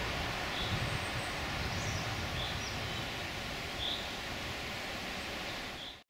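Spring forest ambience: a steady rushing noise with faint short bird calls every second or two. It fades out abruptly at the very end.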